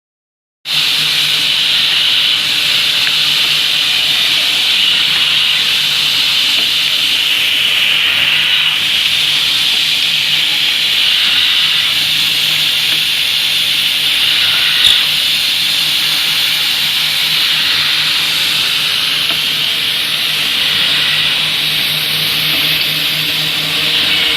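Automatic chair-block drilling machine running: its drill motors make a steady hiss with a low hum underneath and one short click about halfway through.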